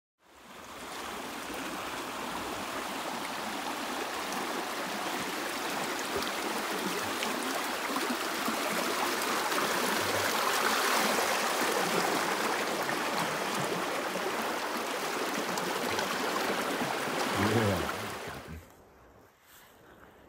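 Creek water rushing and churning around fallen logs: a steady, loud rush that swells toward the middle and cuts off abruptly near the end.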